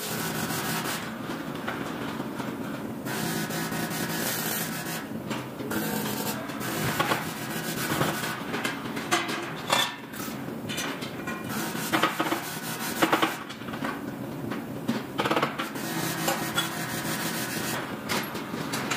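Aluminum fabrication shop noise: a steady machine hum under repeated irregular knocks, clanks and scrapes of aluminum ladder parts being handled and worked.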